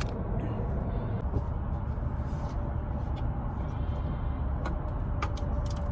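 Low steady rumble of an idling truck engine, with a few faint sharp clicks.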